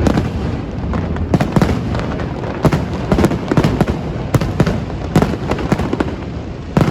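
Aerial fireworks bursting in a dense, irregular barrage: sharp bangs, several a second at times, over a continuous low rumble.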